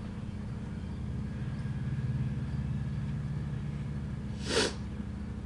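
Steady low hum throughout, with one short scrape near the end, about four and a half seconds in: a savanna monitor lizard's claws or jaws scuffing the plastic tub as it handles a cricket.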